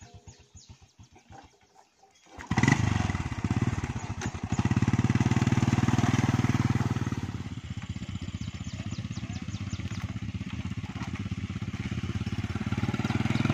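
A motorcycle idles faintly, then about two and a half seconds in a small Honda step-through motorcycle's single-cylinder engine starts. It revs hard for a few seconds, then runs steadily as the bike pulls away.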